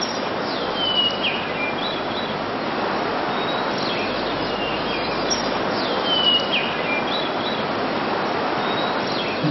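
Steady rush of sea surf with birds chirping over it; two drawn-out falling bird calls stand out, about a second in and again about six seconds in.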